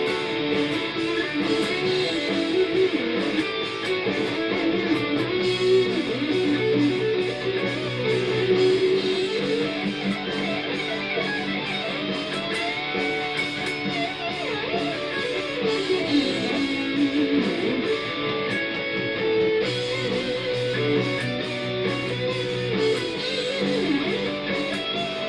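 Condor CLP1 electric guitar played through Amplitube amp simulation, a lead line with string bends and vibrato over a backing track with drums. It is heard through small computer speakers.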